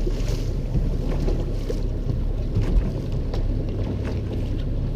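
A boat motor running steadily with wind buffeting the microphone.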